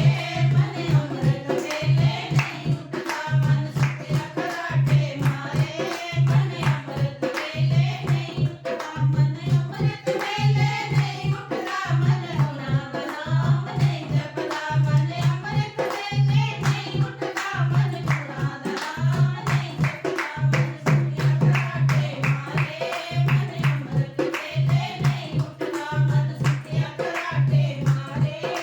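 Punjabi devotional bhajan: singing over a steady, regular hand-drum beat, with sharp claps or percussion clicks throughout.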